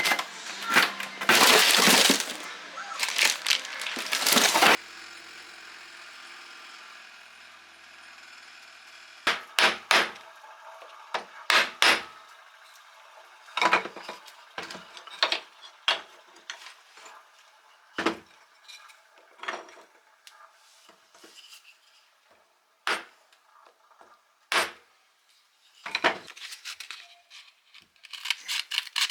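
A tool runs loudly for the first few seconds and cuts off abruptly. Then come scattered sharp metallic clinks and taps of tools and small metal pump parts being handled on a bench.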